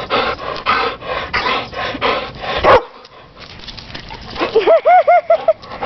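A dog panting hard in quick, even breaths, then, a few seconds later, a quick string of about six short, high yips.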